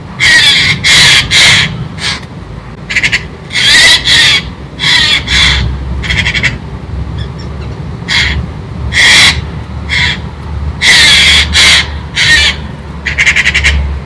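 Eurasian jay giving harsh, rasping screeches, about a dozen in quick succession with short pauses between them: alarm calls scolding a squirrel.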